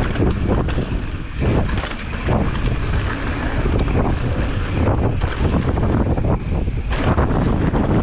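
Heavy wind buffeting a moving camera's microphone over the rumble and rattle of a mountain bike riding down a dirt trail.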